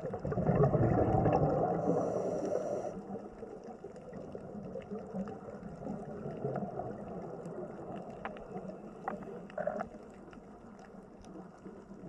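Water splashing and gurgling, swelling loudest in the first few seconds and then settling into a softer, steady wash with scattered small clicks and drips.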